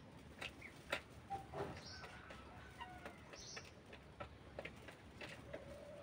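Faint sounds from resting broiler chickens: scattered soft clicks and a few brief chirps, with a short low held call near the end.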